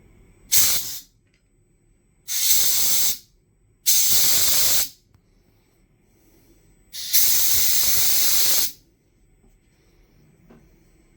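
Four bursts of hissing compressed air from a blow gun: a short one, two of about a second, and a longer one of nearly two seconds, each starting and stopping sharply.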